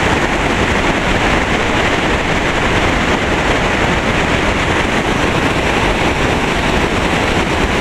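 Whitewater mountain creek rushing over rocks and fallen logs, a loud, steady rush of water.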